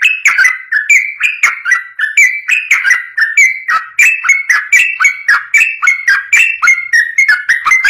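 Trucukan (yellow-vented bulbul) singing a long, fast unbroken run of short bubbling, whistled notes, about four to five a second, with the pitch jumping up and down from note to note.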